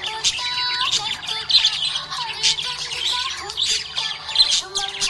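Budgerigar chirping, many quick high chirps in a row, over background music.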